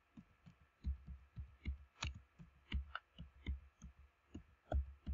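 Computer keyboard being typed on at a slow, uneven pace: about a dozen separate keystrokes, each a light click with a dull low thump.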